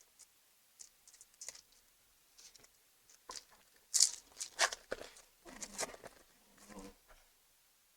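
Foil wrapper of a Pokémon trading-card booster pack being torn open and crinkled by hand, in irregular crackling bursts, loudest about four seconds in.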